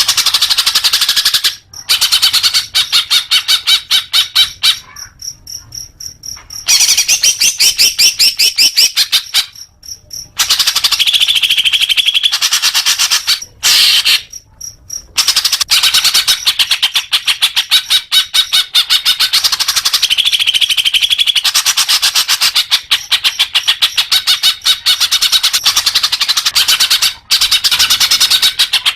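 Green leafbird (cucak hijau) singing: long, fast runs of rapid chattering notes, high-pitched, broken a few times by short pauses.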